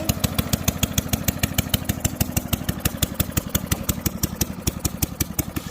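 Straight-piped lawn mower engine, muffler and airbox removed, running with a steady rapid string of sharp exhaust pops, about ten a second.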